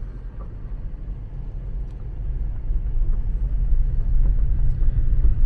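Low, steady rumble of a car's engine and tyres rolling on a gravel road, heard inside the cabin, getting louder over the middle of the stretch as the car picks up a little speed.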